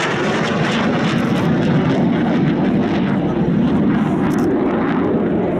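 Panavia Tornado fighter-bomber in flight, its twin RB199 turbofan engines giving a loud, steady, deep jet rumble.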